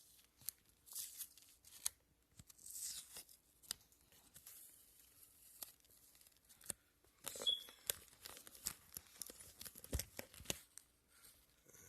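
Tape being peeled and torn off the taped-over ports of a Turbonetics T3 turbocharger, in irregular rips and crinkles with scattered sharp clicks.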